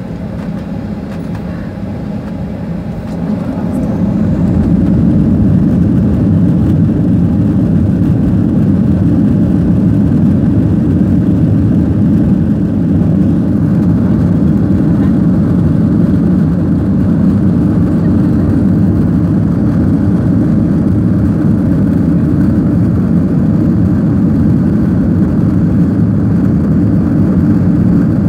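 Jet airliner's engines and rolling noise heard inside the cabin over the wing: a low, steady rumble that swells about four seconds in and then holds loud and even while the aircraft rolls along the ground.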